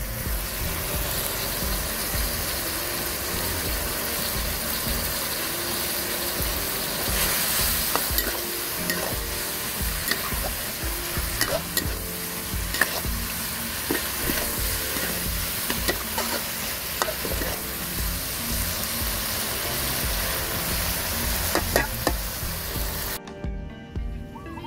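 Rat meat and vegetables sizzling as they are stir-fried in a large wok, a metal spatula stirring and scraping with scattered clicks against the pan. The sizzle cuts off suddenly near the end.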